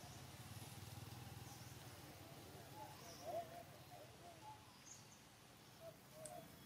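Near silence: faint outdoor ambience. A distant engine hum fades out over the first two seconds, and a few faint, wavering chirps come around the middle and again near the end.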